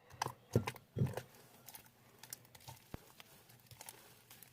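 Homemade glue slime being kneaded and squeezed by hand, giving a string of irregular wet clicks and squelches, louder in the first second and then fainter. The slime is still a little sticky and slightly under-activated.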